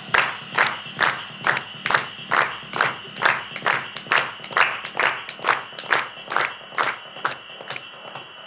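Hand claps in a steady rhythm, about two a second, by the performers clapping together. The claps weaken and stop about seven seconds in, over a steady high tone.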